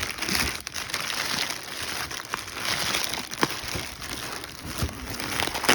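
Plastic bubble wrap crinkling and rustling as it is handled and slid off a packed item, with scattered small crackles.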